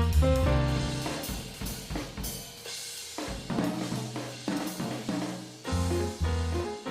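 Jazzy background music: piano and bass with a drum kit, the drums playing a short fill around the middle before the full band comes back in.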